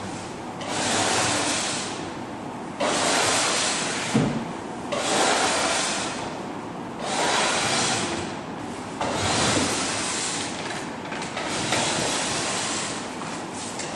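Hand scraping and rubbing back a painted surface in long strokes, one about every two seconds, each a scratchy rushing sweep.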